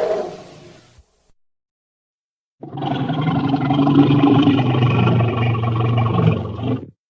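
Mamenchisaurus roar sound effects: the tail of one fades out in the first second, then after a gap of about a second and a half a single roar lasting about four seconds cuts off suddenly.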